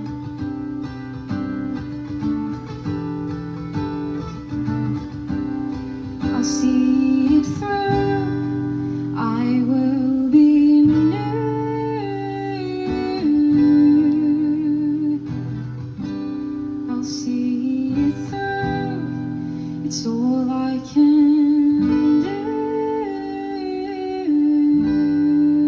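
Acoustic guitar strumming chords, with a woman's voice singing a melody over it from about six seconds in, holding long notes with vibrato.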